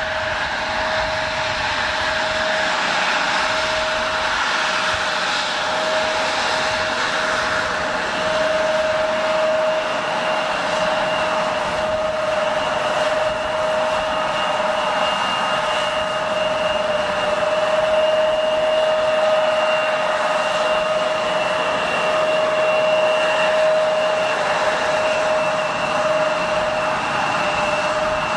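Embraer E175's twin General Electric CF34-8E turbofans whining at idle as the airliner taxis. A steady hiss carries a held mid-pitched tone, and a higher thin whistle joins about a third of the way through.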